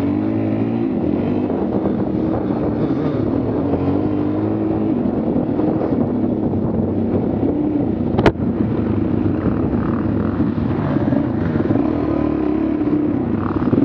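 An engine running steadily with small rises and falls in pitch, and one sharp click about eight seconds in.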